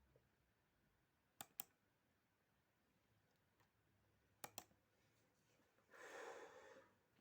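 Two mouse double-clicks about three seconds apart over quiet room tone, then a short exhale near the end.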